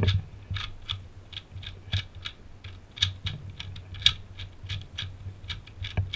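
A plastic 2x2 Rubik's cube being scrambled by hand: quick, irregular clicking of its layers snapping through turns, about four clicks a second.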